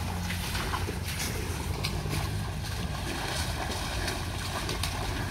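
Steady outdoor noise, mostly wind buffeting the microphone, with a few faint clicks.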